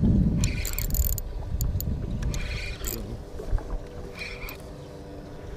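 Handling noise and wind rumble on a chest-mounted camera's microphone as an arm moves right in front of it, loudest at first and dying down toward the end. Three short hissing bursts come about a second and a half apart.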